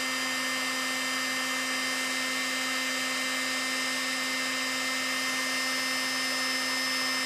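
Electric heat gun running steadily, a constant fan whir with an even hiss of blown air. It is heating a freshly painted jig head to cook the paint on.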